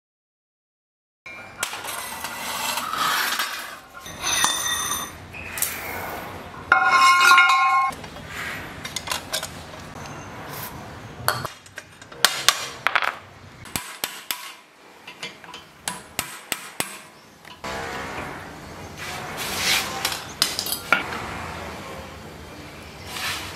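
Hand tools knocking and clinking on a rusty steel plate and its sprocket: sharp hammer taps with a ringing metal strike about seven seconds in, and a longer stretch of rubbing metal noise near the end.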